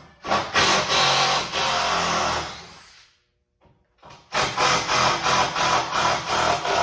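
A handheld power tool run in two bursts of about two and a half seconds each, with a fast rattling beat. The first burst tails off as the tool winds down.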